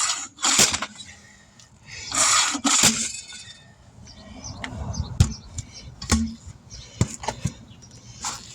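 Two short hisses, then a series of sharp knocks as a tire bead is struck to break it loose from a rusty steel wheel rim, until it pops free.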